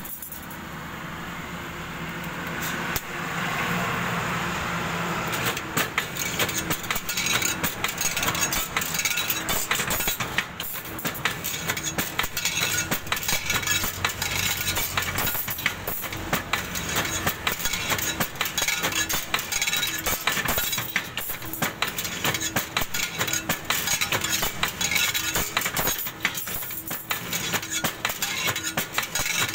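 Stirrup bending machine running, its bending arm folding steel rod into square stirrups: continuous metallic clinking and clattering over a steady motor hum.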